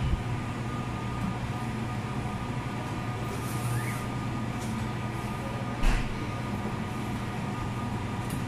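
Steady low mechanical hum with a few faint steady tones above it, and one short knock about six seconds in.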